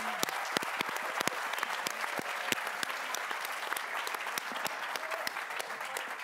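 Audience applauding: a dense run of many hands clapping, with a few single sharp claps standing out above the rest.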